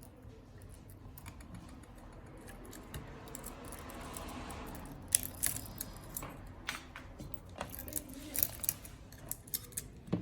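Small hand tools handled on a workbench: irregular sharp clicks and clinks, after a soft hiss that swells and fades about three to five seconds in.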